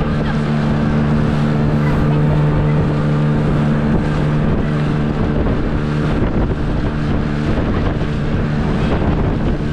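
Outboard motor of an inflatable dinghy running steadily at speed, a steady low hum. Wind buffets the microphone.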